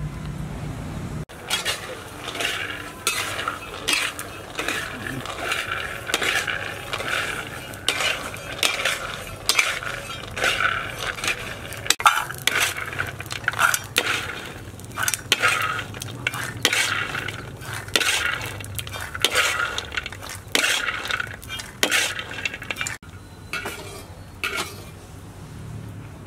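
Peanuts being dry-roasted in an aluminium pot, stirred so the nuts rattle and scrape against the metal in irregular strokes, one or two a second; the stirring stops near the end.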